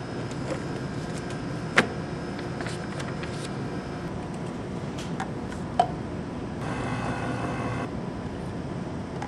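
Steady lab ventilation hum, with knocks and clicks from a kit box and its contents being handled on a bench. The sharpest knock comes about two seconds in and another about six seconds in. A small motor whirs for about a second near the end.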